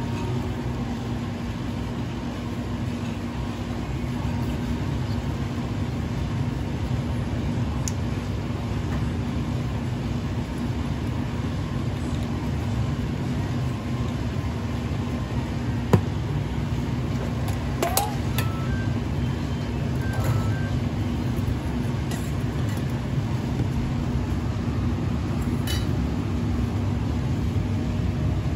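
Steady low rumble with a constant hum, the background machinery of a commercial kitchen such as ventilation running. There is a single sharp click about halfway through.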